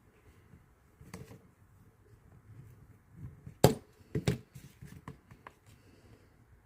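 Handling sounds of silicone mold pieces being fitted together: scattered small clicks and rubs, one sharp knock a little past the middle, then a few more knocks about half a second later.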